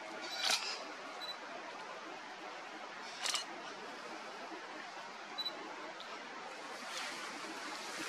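A single-lens reflex camera's shutter firing twice, about half a second in and again about three seconds later, with short high focus-confirmation beeps between the shots. Under it runs a steady background hiss.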